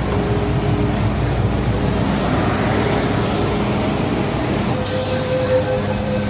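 Steady rumble of an MTR M-Train with its motors and equipment running. About five seconds in, a sudden hiss of air starts along with a steady tone.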